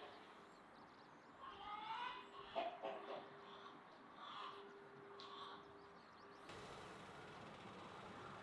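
Faint outdoor background with small birds chirping a few times; about two-thirds of the way through, a steady soft hiss comes in.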